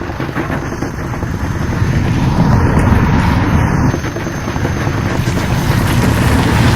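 Sound-designed engine rumble: a dense, low, fluttering drone like a vehicle or aircraft engine, swelling louder about two seconds in.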